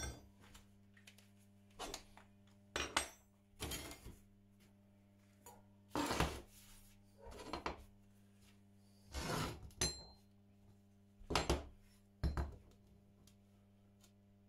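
Steel workpieces being handled on a workbench: about ten separate irregular clinks and knocks of metal on metal, a few ringing briefly.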